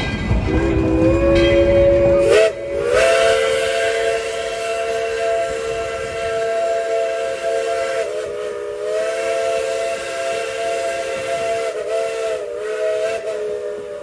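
Steam whistle of Tweetsie Railroad's No. 12, a Baldwin 4-6-0 narrow-gauge steam locomotive, blown in one long sustained blast of several notes sounding together. It comes in about half a second in, jumps up in pitch about two seconds later as it opens fully, and wavers slightly as it is held. The train's low running rumble underneath fades about two seconds in.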